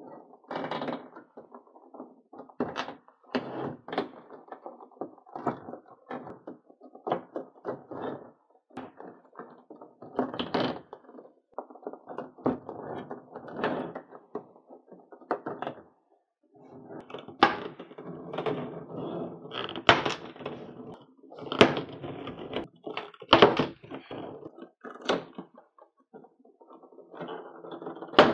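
Rigid clear plastic blister packaging being handled and pulled apart: irregular crinkling, creaking and knocking of the plastic trays, with a brief pause partway through.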